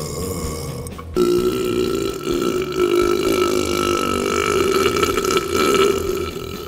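One long, loud burp held for about five seconds at a fairly steady pitch, starting about a second in after a brief break.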